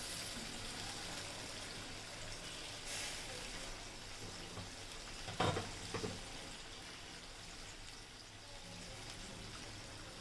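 Spiced onion, garlic and ginger masala sizzling steadily in hot oil in a pan as it is fried down. There are two short knocks a little past halfway.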